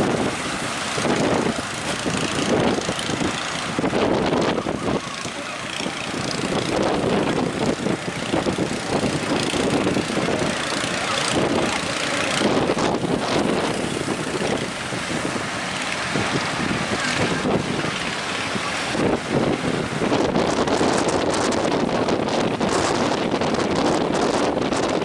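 Strong wind buffeting the microphone: a loud, dense rushing noise that rises and falls in gusts.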